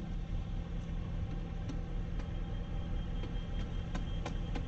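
An engine running steadily, a low even hum, with scattered light clicks and knocks through the second half.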